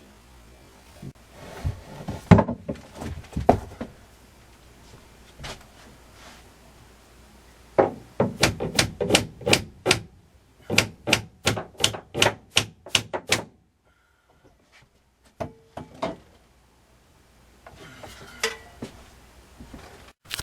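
Hammer striking in quick light taps: a few scattered knocks, then two runs of about a dozen rapid blows at roughly four a second, with a pause between the runs.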